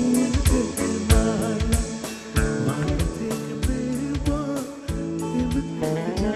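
Live band playing a Bengali pop song: a regular drum-kit beat under guitar and keyboards, with a man singing into a microphone.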